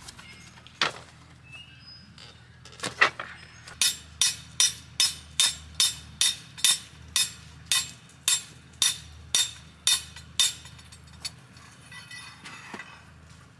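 A peg hammer driving a tent peg into gravel ground: a few single blows, then a steady run of sharp, ringing metal strikes at about two and a half a second, ending with one or two last blows.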